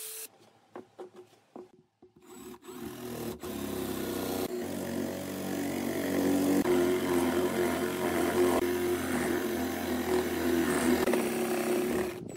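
Electric drill with a spade bit boring into a block of wood, the motor running steadily as the bit cuts. It starts about two seconds in, after a few light knocks of wood being handled, grows louder as the bit bites deeper, and stops just before the end.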